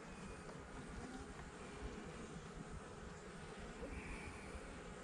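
Honeybees humming softly and steadily around an opened nuc hive as its frames are worked.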